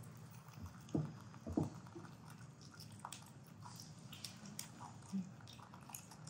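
Pet monkeys eating: faint biting and chewing with scattered small crunches and clicks, and two dull knocks about a second in.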